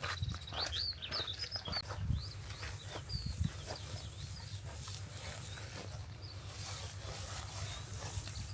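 Skylark singing: a quick run of high chirps and warbled notes, densest in the first few seconds and thinner after. A low steady rumble runs underneath.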